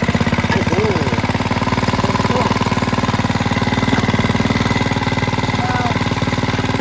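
A mini bike's small four-stroke engine running steadily at idle with a fast, even firing beat, just after starting up following an oil change and tune-up.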